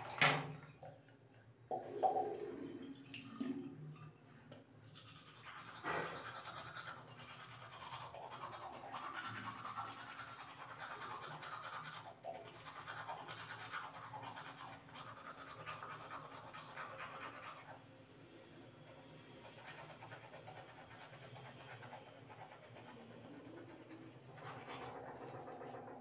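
A sharp knock right at the start, then a manual toothbrush scrubbing teeth steadily for most of the time.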